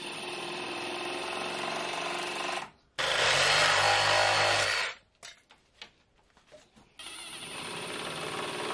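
Cordless drill boring into timber with a long bit, in three runs. The middle run, about three seconds in, is the loudest and lasts about two seconds. A few light clicks fall in the pause before the last run.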